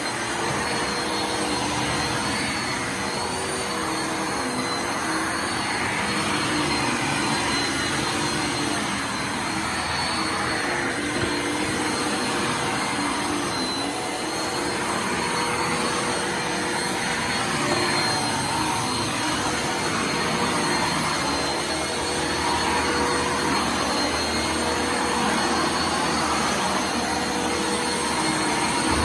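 Bissell Lift-off Multi Cyclonic Pet upright vacuum cleaner running continuously, its motor giving a steady high whine over the airflow noise, with small shifts in tone as it is pushed back and forth over the floor.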